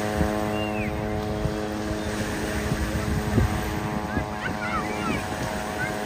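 A steady engine drone, holding one even pitch, over a low wash of beach noise and distant voices, with a few short bumps, the strongest about halfway through.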